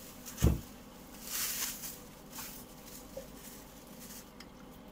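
Thin plastic bag rustling and crinkling as it is handled and opened, with one dull thump about half a second in.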